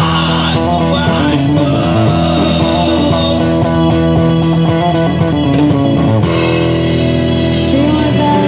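Live band music played through a street PA: drum kit with amplified guitar and bass carrying an instrumental passage after the vocal line ends.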